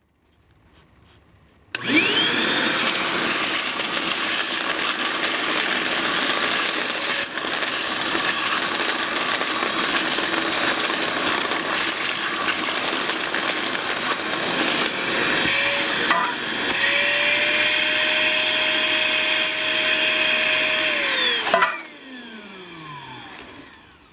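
Hyper Tough 1.5-gallon wet/dry shop vacuum switching on about two seconds in and running loud and steady, sucking up quarter-inch stainless nylock nuts, with a couple of brief clatters as nuts go up the hose. Its motor pitch rises a little about two-thirds of the way through; it is then switched off and winds down with a falling whine.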